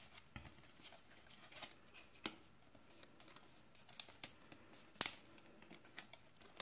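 Hands folding and handling a stiff die-cut cardstock lantern: faint rustling and crinkling of the card with scattered light taps and snaps, the sharpest about five seconds in.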